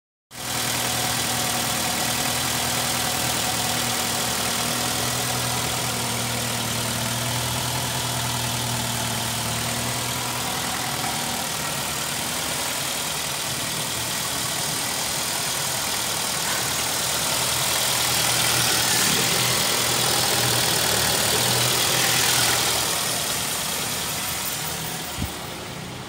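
Nissan X-Trail 2.5-litre four-cylinder petrol engine idling steadily, a used engine with about 248,600 km on it. It grows fainter near the end.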